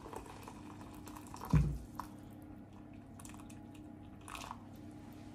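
Boiling water trickling and dripping from a kettle into a glass measuring jug, faint, with one dull thump about a second and a half in.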